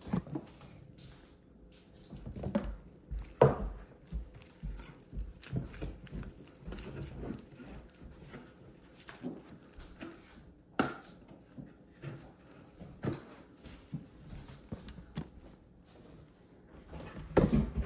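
Thick yellow slime being stretched, folded and squeezed by hand, giving irregular sticky pops and squishes, with a couple of sharper snaps and a burst of louder pops near the end.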